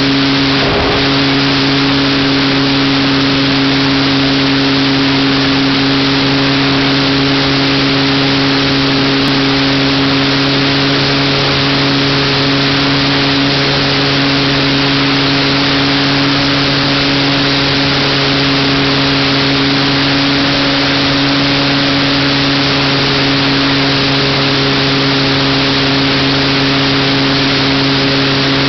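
Electric motor and propeller of a Graupner Dandy model plane running at a steady pitch in flight, heard from the onboard camera, under a loud, even rushing hiss of airflow.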